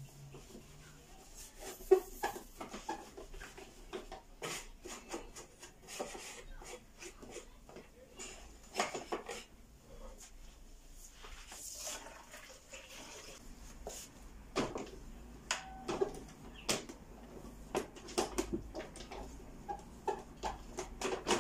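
Cloth wiping the stainless-steel lid of an electric sandwich press: soft rubbing with scattered light knocks and clicks, and one sharp knock about two seconds in.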